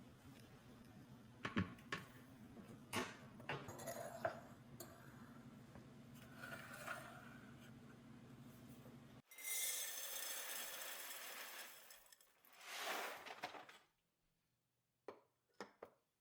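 Small clinks and knocks of household objects being set down and handled over a low steady hum. About nine seconds in the hum cuts off and two spells of rustling hiss follow, then a few light taps near the end.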